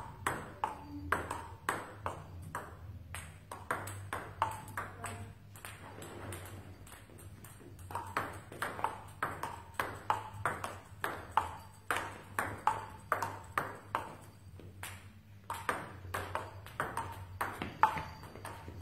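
Table tennis rally: the ball clicks back and forth off the bats and the table at about two hits a second. The rally thins out briefly about six seconds in and again about fifteen seconds in.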